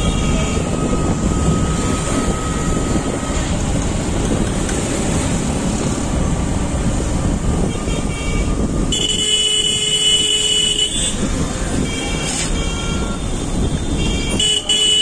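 Riding a motorcycle through town traffic: a steady engine and wind rumble, with horns tooting several times, the longest about nine seconds in and lasting about two seconds.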